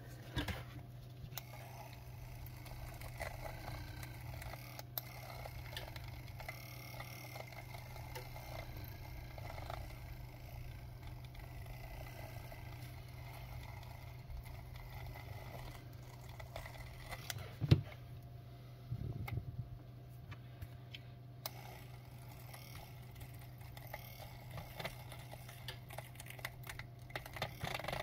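Quiet handling of a cracked phone glass and a handheld wire-cutting tool: small clicks, taps and light rattles over a steady low hum, with one sharper click a little past the middle.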